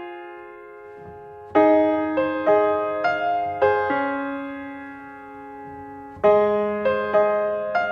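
Slow background piano music: struck chords and single notes that ring and fade away, with new phrases entering about a second and a half in and again near six seconds.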